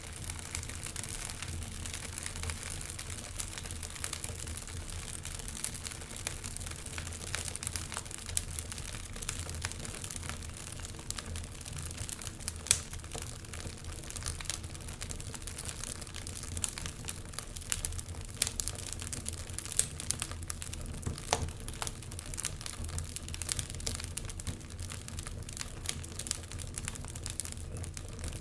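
Wood fire crackling in a fireplace: a steady low rumble of the flames with irregular sharp pops and snaps throughout, one louder pop about twelve seconds in.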